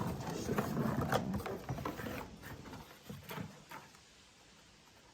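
Rustling and light clicks of cardboard pieces being handled and worked on a bench, dying away about four seconds in.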